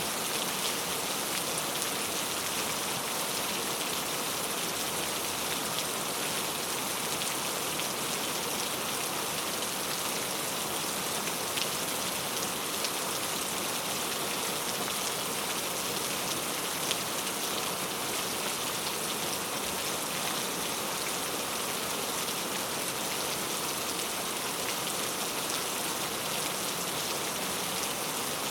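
Heavy rain falling steadily on hard surfaces, an even hiss with scattered drop ticks.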